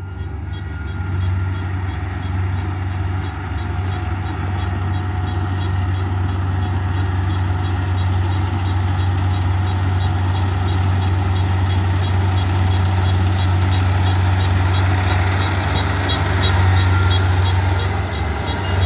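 Kubota combine harvester running steadily: a loud, deep engine hum with machinery noise over it, building over the first seconds. A regular high ticking, about three or four a second, stands out in the later part.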